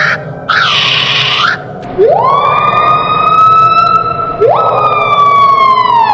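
A bird's harsh, hissing screech that swoops down and up, then two long siren-like wails. Each wail rises steeply, holds, and slowly sinks; the second starts about halfway through and drops away at the end.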